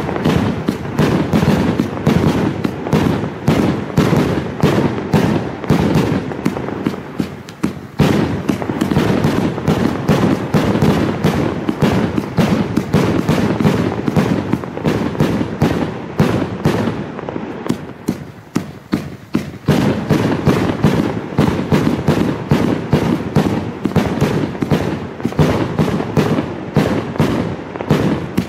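A 100-shot, 30 mm fireworks cake (Corolla Blue) firing in rapid succession: launch thumps and bursts follow one another without a break.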